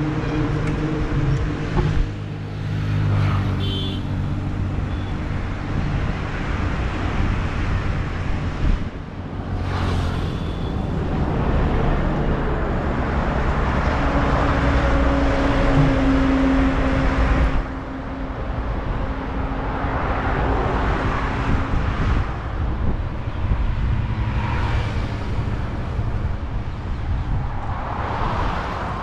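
Road traffic: motor vehicles driving past with engine hum and swells of road noise as they go by, broken off abruptly a few times.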